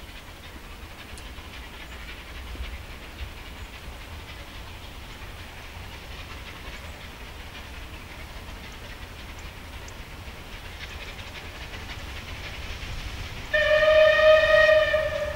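Steam locomotive hauling a train as it approaches, a low steady running noise, then one loud, steady whistle blast of about two seconds near the end.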